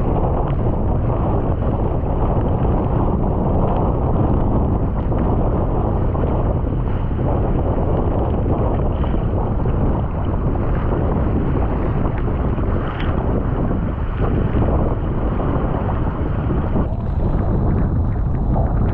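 Strong wind buffeting the microphone in a 25–35 knot blow, a steady low rumble over the rush and splash of water around a surfski.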